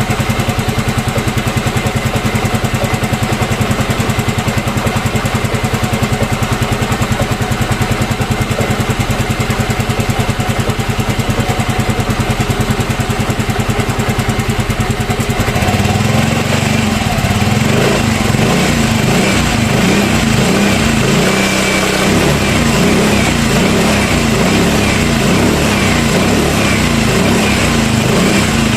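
Yamaha Mio M3 scooter's single-cylinder engine running with a new camshaft bearing fitted, the rough engine noise gone. It runs with an even, rapid pulse, then about halfway through changes to a heavier, less even note.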